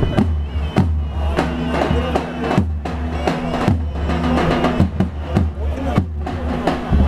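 Traditional oil-wrestling music of a davul bass drum and a held melody: drum strokes about every half second with the tune running over them.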